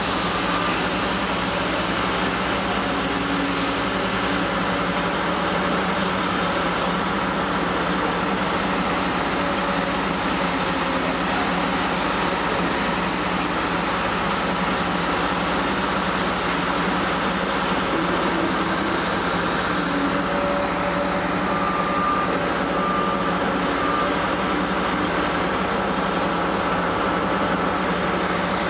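The diesel engine of a long-reach Samsung excavator running steadily, heard from inside its cab.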